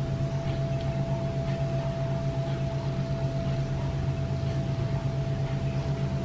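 Steady machine hum: a low drone with a thin, higher steady tone above it, holding at an even level throughout.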